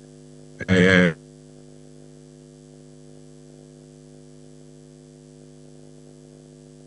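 Steady electrical hum made of several pitched tones held level, with one short spoken word about a second in.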